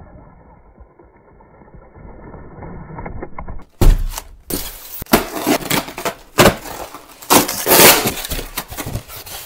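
A faint, muffled RC crawler drives over a dirt trail. About four seconds in, a styrofoam shipping box is handled and pried open, and the foam and plastic packing crunch, creak and crackle loudly with sharp cracking snaps.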